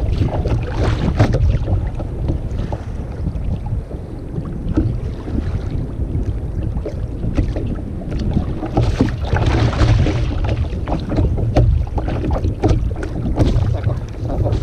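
Wind buffeting a microphone on a sit-on-top kayak at sea, a constant heavy rumble, with water sloshing against the hull and scattered small knocks and rustles, a louder gust-like swell about nine seconds in.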